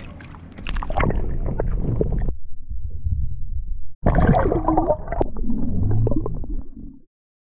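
Water sloshing and gurgling around an action camera held at and under the surface of a pond as a tilapia is released. The sound is muffled and irregular, breaks off sharply about four seconds in, resumes, then cuts off suddenly shortly before the end.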